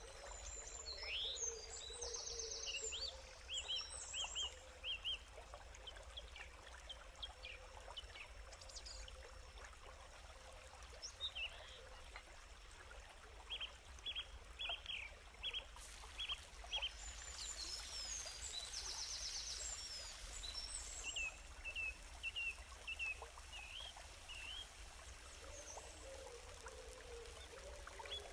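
Small birds chirping in short, repeated calls over a steady rush of running water. A rapid high trill comes twice, once near the start and once past the middle.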